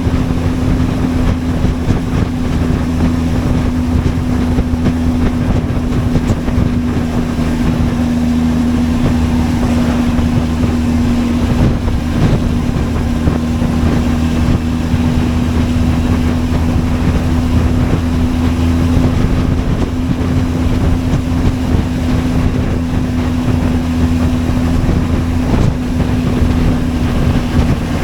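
Benelli TRK 502X's parallel-twin engine running at a steady pace while riding, with wind buffeting the microphone.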